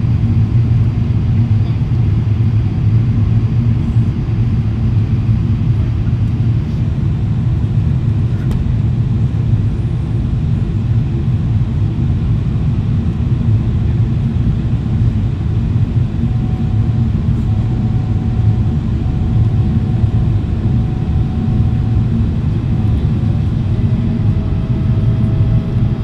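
Steady cabin noise inside a Boeing 777-300ER on descent with the flaps extended: an even low rumble of engines and rushing air.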